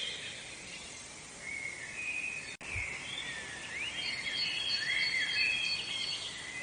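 Several songbirds chirping and singing over one another, short rising and falling phrases against a steady soft background hiss. The sound drops out for an instant about two and a half seconds in.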